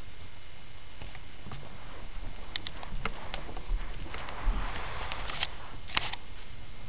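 Close scuffling and rustling with scattered light clicks over a steady low hum. A denser burst of rustling comes about four seconds in, and a sharper click near the end.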